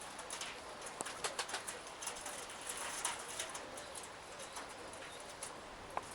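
Pigeons cooing faintly, with scattered short chirps and ticks.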